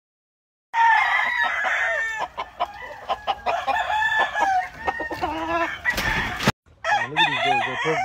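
Several gamefowl roosters crowing, their calls overlapping one another. The crowing starts abruptly about a second in and breaks off for a moment near the end.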